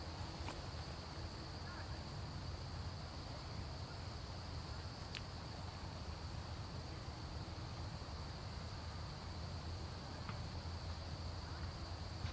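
Outdoor ambience picked up by a camera's built-in microphone: a steady low rumble under a continuous high-pitched drone, with a few faint clicks.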